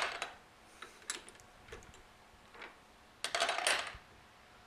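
Metal clicks and clinks at a lathe chuck as the workpiece is loosened and taken out by hand. A few single clicks are followed, about three seconds in, by a longer metal rattle.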